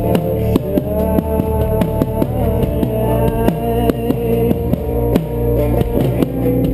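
Live rock band playing an instrumental passage: a drum kit keeps a steady beat under sustained guitar notes.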